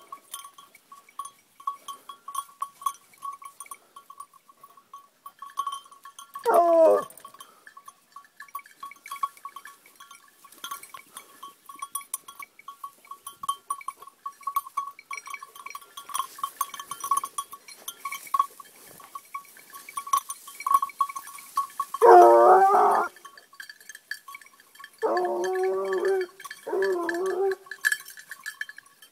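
Black and tan coonhound baying on a wild boar hunt, in four long, drawn-out bawls: one about six seconds in, a louder one past the twenty-second mark, then two close together near the end. A small bell clinks steadily between the bays.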